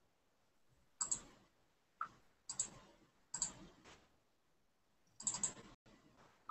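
Faint, scattered clicks at a computer, about six in all with a small cluster near the end, as the screen share is closed and reopened.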